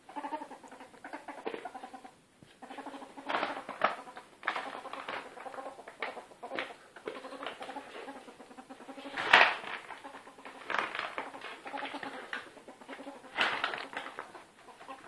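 Pet ferret dooking: rapid, chuckling clucks in runs of a few seconds at a time while it is tickled and wrestled by hand, the ferret's sound of excited play. A louder sharp burst stands out about nine seconds in.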